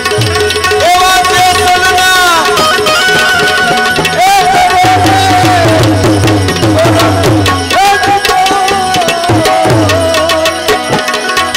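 Santvani devotional music with tabla keeping the beat under a melody of long held notes that slide into pitch, in three phrases.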